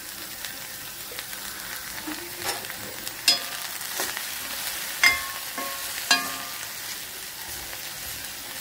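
Cut okra sizzling in hot oil in a kadai as it is stirred with a steel spoon. The spoon clinks against the pan a few times, most loudly about three, five and six seconds in.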